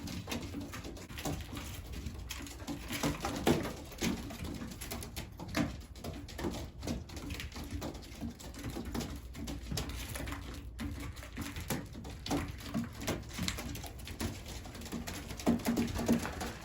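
Racing homing pigeons cooing in the loft, with scattered quick taps of birds pecking at feed.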